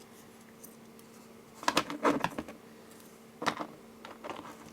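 Small handling noises as nylon cords are measured: a cluster of short rustles and taps about two seconds in and another about three and a half seconds in, over a low steady hum.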